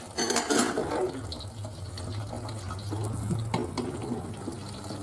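Whole red chilies and tomato frying in oil in a saucepan under a glass lid: a steady sizzle, louder in the first second, with a few sharp pops from the unpierced chilies spitting. A low steady hum sits under it.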